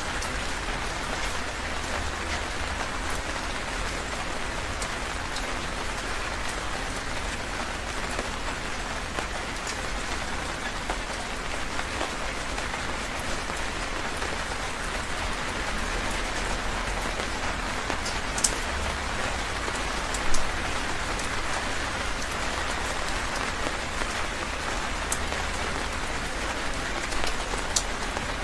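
Heavy rain falling steadily, a dense even hiss with scattered sharper drop strikes, a few louder ones around two-thirds of the way through.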